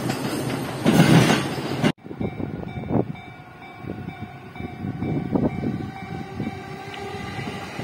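Loud rushing noise of a train passing close by, peaking about a second in and cut off abruptly. Then a Japanese level-crossing warning bell rings steadily with the barrier down as a train approaches.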